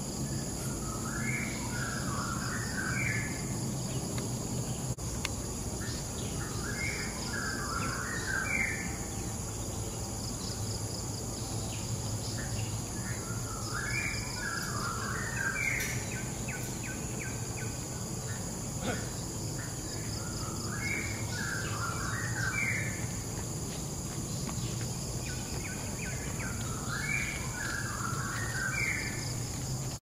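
A bird in tropical forest repeats a short phrase of quick notes five times, about every six seconds, over a steady, high insect drone.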